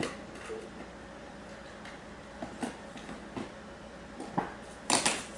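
Small clicks and taps of a plastic drone radio controller being handled while a screwdriver opens its battery cover, with a louder pair of sharp clicks about five seconds in.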